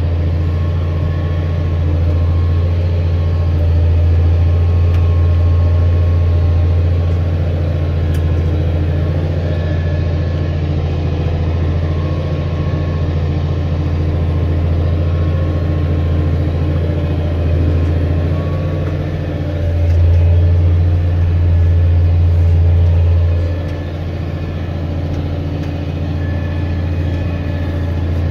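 Tractor diesel engine running steadily under load while pulling a subsoiler through the field, a constant low drone. It grows louder for a few seconds near the end, then drops back.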